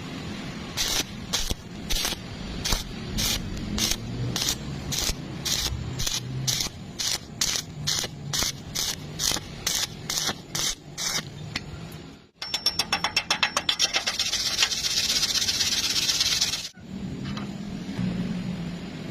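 Stick (SMAW) welding arc, struck and broken in a steady rhythm of short hissing bursts about twice a second, as in a whip-and-pause technique. About twelve seconds in, the arc crackles back on and burns as a continuous hiss for about four seconds, then cuts off suddenly, leaving a low hum.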